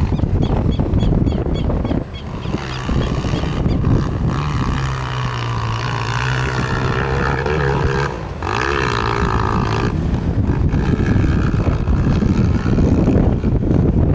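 A Honda CRF230 dirt bike's single-cylinder four-stroke engine pulls steadily under throttle. The throttle is cut briefly about two seconds in and again around eight seconds in, and the pitch rises and falls after the second cut. Wind rumbles on the microphone throughout.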